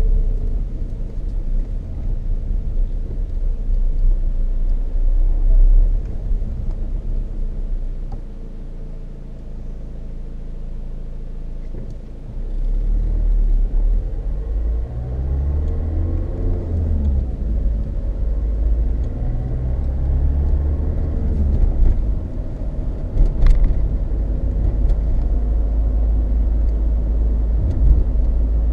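Loud low road rumble inside a Peugeot 306 2.0 HDi's cabin from worn Dunlop Sport BluResponse tyres, over the diesel engine. It eases for a few seconds about eight seconds in, then comes back louder while the engine note rises and falls. The owner suspects tread wear, since bearings, suspension, balancing and alignment have all been checked.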